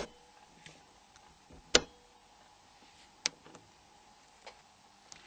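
Torque screwdriver tightening small phone screws: a handful of sharp, irregularly spaced clicks, the loudest at the very start and just under two seconds in, as each screw reaches its set torque.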